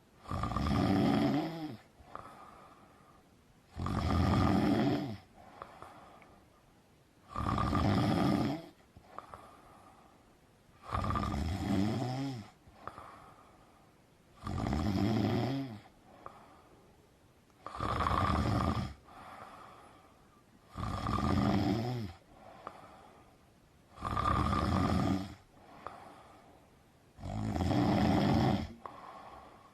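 Snoring with a steady rhythm: nine loud, rasping snores about every three and a half seconds, each lasting about a second and a half, with a quieter breath out between them.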